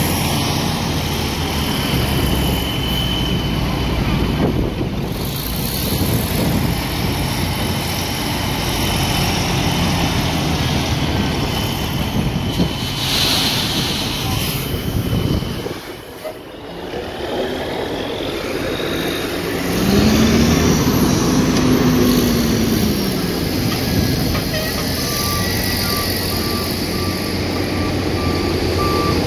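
Heavy diesel dump-truck engines running, with one engine revving up and back down about two-thirds of the way through. Near the end a truck's reversing alarm starts beeping steadily.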